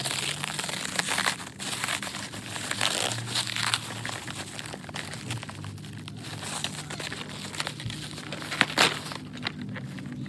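Plastic packaging being crinkled and rustled by hand, with irregular sharper crackles, as a parcel is unwrapped.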